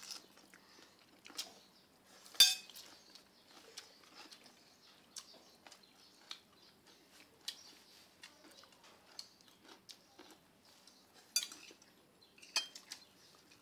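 Chopsticks and spoons clicking and clinking against ceramic bowls and plates as food is picked up: scattered light clicks, the loudest about two seconds in and another strong one near the end.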